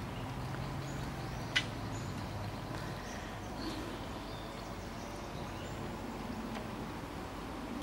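Quiet outdoor ambience with a faint steady hum and scattered faint, short high chirps from birds. One sharp click about a second and a half in.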